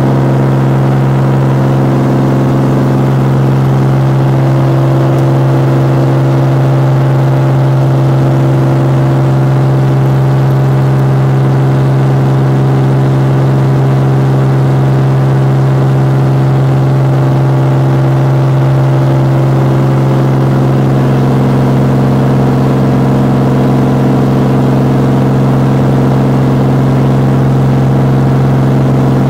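Light aircraft's propeller engine running steadily at climb power, heard from inside the cabin as a loud, even drone with a strong low hum. Its tone changes slightly about twenty seconds in.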